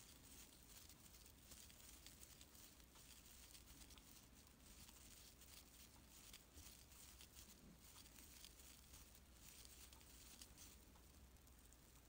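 Near silence with faint, irregular rustling of acrylic scrubber yarn pulled through by a crochet hook as double crochet stitches are worked.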